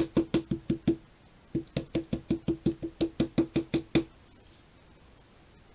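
A stamp tapped rapidly and repeatedly onto a Memento black ink pad to ink it: quick hollow knocks about six a second, in two runs with a short pause about a second in, stopping about four seconds in.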